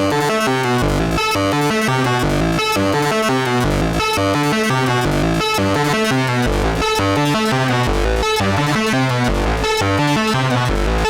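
Eurorack modular synthesizer playing a fast sequenced pattern of short notes over a stepping bass line, run through the Erica Synths Black Ring ring modulator, which gives it dense, clangorous metallic overtones.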